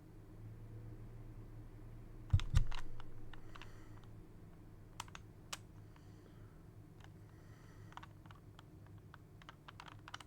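Original Rubik's Cube being turned by hand: irregular clicks of its plastic layers turning. The loudest is a knock with a low thud about two seconds in.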